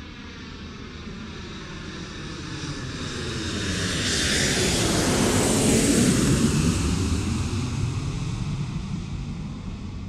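An airplane passing overhead, its rushing engine noise swelling to a peak about six seconds in and then fading.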